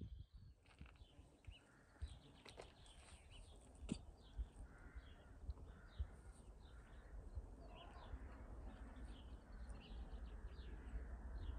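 Birds chirping faintly, many short high calls, over a low rumble that slowly grows louder toward the end.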